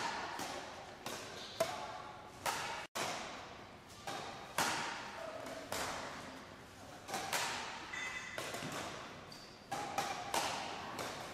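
Badminton racket smashing shuttlecocks: a run of sharp hits about one a second, each ringing on with the echo of a large sports hall.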